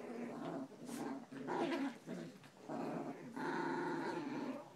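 Chihuahuas growling in a run of short growls with brief gaps, as they pull against each other on a rope toy in a tug of war.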